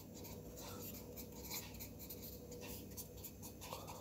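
A pen writing on paper on a clipboard: faint, irregular scratching strokes as a word is written out.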